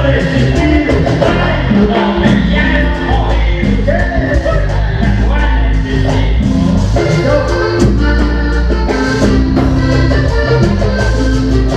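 Vallenato band playing live: accordion-led music over bass and percussion with a steady beat.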